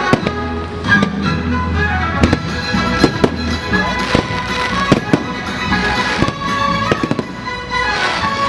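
Fireworks going off in a string of sharp bangs, roughly one a second, over loud orchestral show music.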